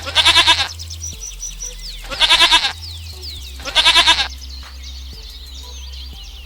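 Goat bleating three times, each a loud, wavering call of about half a second, roughly a second and a half apart.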